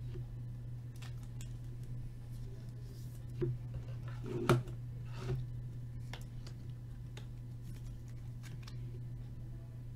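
Light handling noise of a trading card and a clear plastic card holder: small clicks and rustles, with a sharper clack about four and a half seconds in, over a steady low hum.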